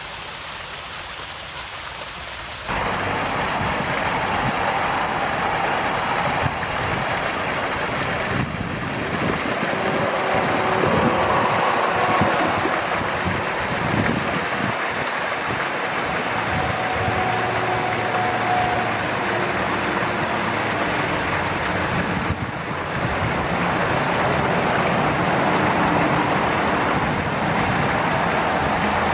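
Steady rush of a partly frozen waterfall, water pouring behind a curtain of ice, blended with traffic noise from a highway below. The sound gets louder about three seconds in and then holds steady.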